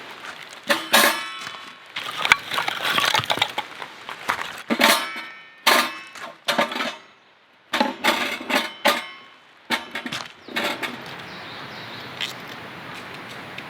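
A series of clanks and clinks from objects being handled and set down, several with a short metallic ring, with brief quiet gaps between them.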